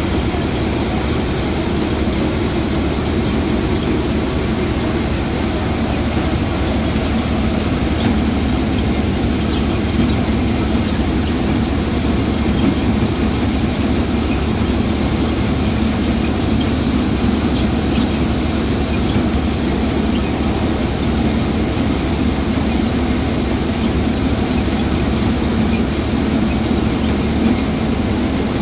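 Threshing machine running steadily while threshing pearl millet: a loud, continuous mechanical drone that does not change.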